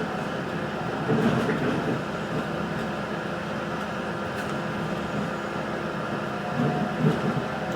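Steady running noise heard from inside an Adelaide Metro 3100-series diesel railcar on the move, with two louder bumps: one about a second in and one near the end.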